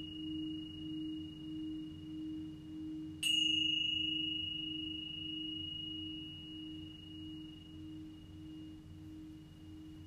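Singing bowls ringing: a low bowl hums with a slow, even wavering pulse. About three seconds in, a small high-pitched bowl is struck with a bright ping, and its clear ring fades away over the next several seconds.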